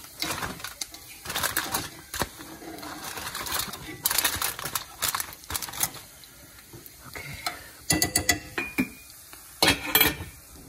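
Aluminium foil crinkling and rustling in irregular bursts as it is laid back over a roasting pan of lamb loin, with a brief squeak about three quarters of the way in.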